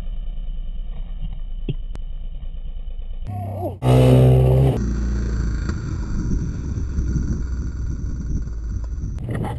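ATV engines running: a steady low rumble, broken by cuts between clips, with a much louder stretch about four seconds in.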